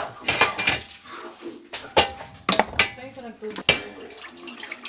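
Clatter of hard kitchenware being handled and set down: a series of irregular sharp knocks and clinks, with some rustling and splashing between them.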